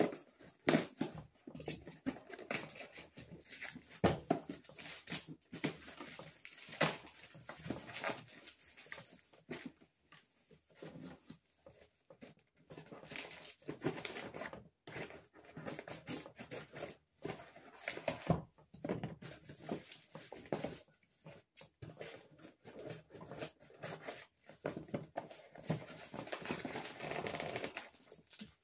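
Scissors cutting packing tape on a cardboard shipping box, with tape tearing and the cardboard flaps scraping and crackling as the box is pulled open. The snips and crackles come irregularly, with a quieter stretch about ten seconds in.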